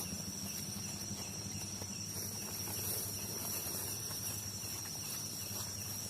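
Night insects chirring in one steady, unbroken high-pitched tone, over a low steady hum.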